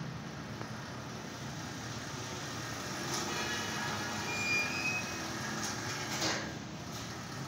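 Small belt conveyor running: a steady low motor hum as the belt travels over its rollers, with a few light clicks and a short high squeak about halfway through.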